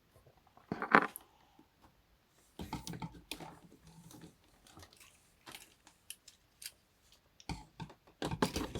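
Plastic Transformers action figure being handled: irregular small clicks and taps of its plastic parts and joints, the loudest about a second in.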